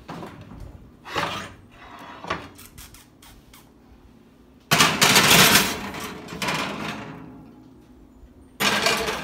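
Oven being loaded: the oven door opening and a glass baking dish sliding and scraping onto the metal wire rack. There are two loud sudden scraping stretches, the first about halfway through and fading over a second or two, the second near the end.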